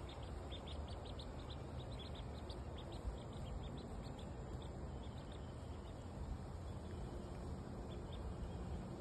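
Ducklings peeping: a quick run of short, high peeps that thins out in the second half, over steady low background noise.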